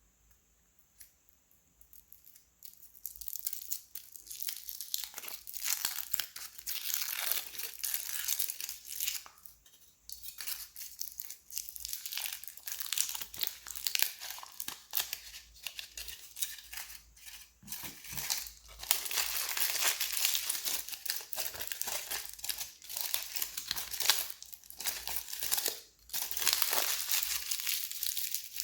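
Surprise-egg and candy wrappers being torn open and crinkled by hand: dense ripping and crackling that starts about two seconds in and goes on in long spells with a few short pauses.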